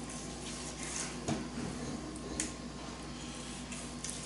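Knife slicing raw backstrap and knocking on a plastic cutting board: a few sharp taps, the loudest a little over a second in, over a faint steady hum.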